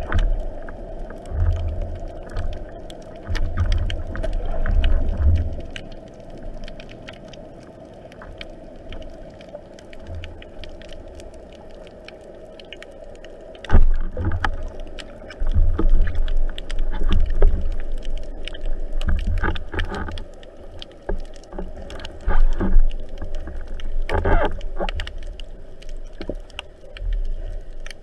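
Underwater noise heard through a camera housing mounted on a speargun: low rumbling water rush and bumps as the diver swims, with scattered clicks and knocks. The sound gets suddenly louder about halfway through.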